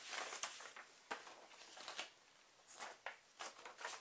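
Paper leaflets being handled and leafed through, a run of soft rustles with several sharper flicks of paper.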